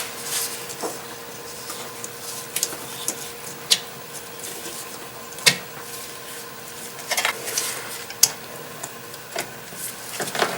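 Scattered clicks, taps and short scrapes of a coolant hose and its hose clamp being worked back onto a plastic coolant recovery tank, over a faint steady hum. The sharpest click comes about halfway through.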